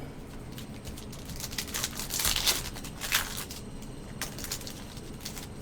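Trading cards and thin plastic penny sleeves being handled, with soft crinkling and rustling. It is busiest about two to three seconds in, with a few light clicks.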